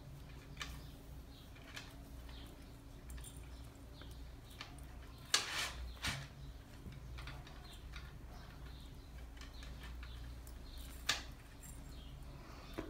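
A few light clicks of a metal curb chain and a sewing needle as the chain is hand-stitched to a crochet bag with yarn, the loudest about five seconds in, over a faint steady low hum.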